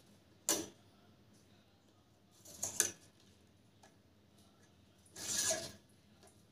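A ballpoint pen and steel ruler moving on a sheet of paper over a wooden table: three short strokes, a brief one about half a second in, another near three seconds and a longer one past five seconds.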